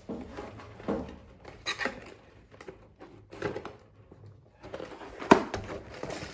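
A Play-Doh toy set's packaging being opened and handled: scattered rustling and light taps and knocks, with one sharp click about five seconds in.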